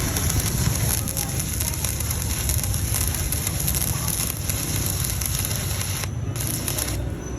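Stick-welding arc burning a 3.2 mm electrode on a Kimmie inverter welder, with a steady, loud crackle and sizzle. The high part of the crackle thins briefly twice near the end.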